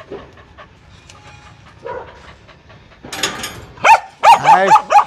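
A frightened dog being handled for a vaccination. It pants faintly, then gives several loud cries whose pitch rises and falls, beginning about three seconds in.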